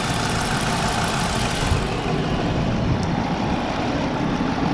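2010 Dodge Charger police-package engine idling steadily, heard up close with the hood open. The higher hiss drops away about two seconds in.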